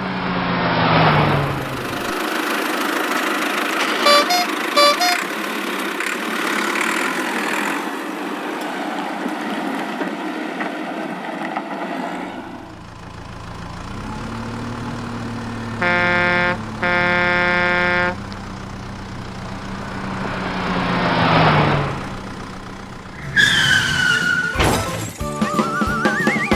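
Cartoon vehicle sound effects: a steady engine noise, two horn blasts about two-thirds of the way through with the second one longer, and a vehicle swelling up and passing by, its pitch dropping. Bouncy music comes in near the end.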